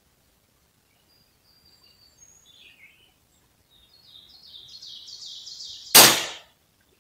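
Birds chirping, with a quick run of chirps building up, then a single sharp crack of a Ruger Precision Rimfire .22 LR rifle firing about six seconds in: the cold-bore first shot.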